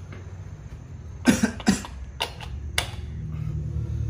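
A man coughs twice, then two sharp plastic clicks as a plug-in socket tester is pushed into a 13 A wall socket. A low hum builds near the end.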